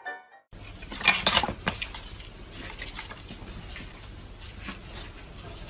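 Sharp clattering and clicking of hard objects, loudest in a burst about a second in, then scattered clicks over a low steady hum.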